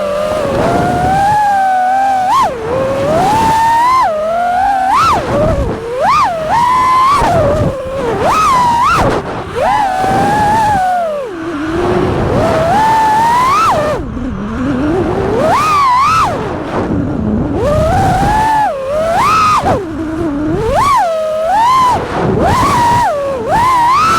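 FPV racing quadcopter's brushless motors and props whining, the pitch jumping up and falling back again and again as the throttle is punched and cut.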